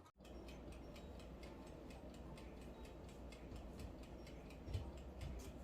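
Faint, rapid, even ticking, like a clock or a mechanical kitchen timer, over a steady low hum.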